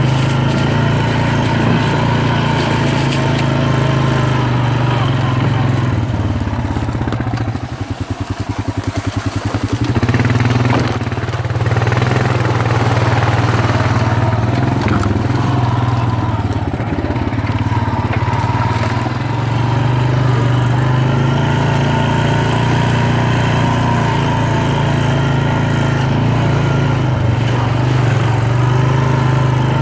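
ATV engine running as it is ridden along a dirt trail. About eight seconds in it drops back for a couple of seconds to a slow, even beat, then picks up again and runs steadily.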